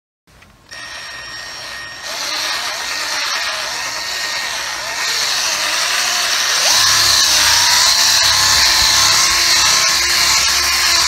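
Small electric polisher running with its pad on motorcycle paint, a steady hiss. About six and a half seconds in, the motor speeds up: its whine rises, then holds steady.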